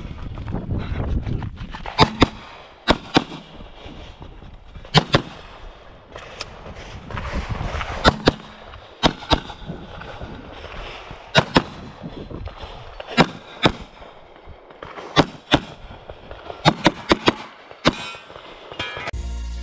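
9mm Glock 45 pistol firing in quick pairs and short strings of shots, with pauses of a second or so between groups. There are more than twenty sharp cracks in all.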